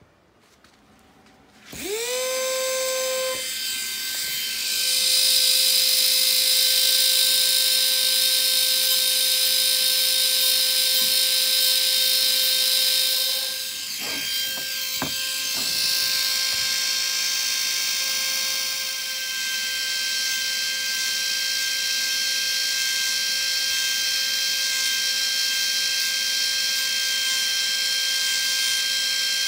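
Micromotor rotary tool with a diamond bit spinning up about two seconds in to a steady high whine. It then grinds down the overgrown incisors of a rabbit with malocclusion, a hissing grind over the whine while the bit is on the tooth. The sound dips briefly, with a couple of clicks, about halfway through.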